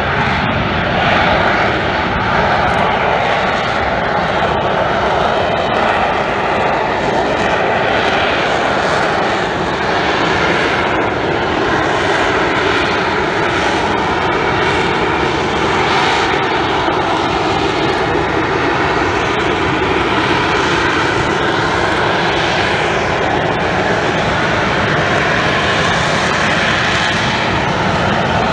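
Harrier jump jet's Rolls-Royce Pegasus engine running at hover power, its nozzles turned straight down, as a loud, steady jet noise with a faint steady whine.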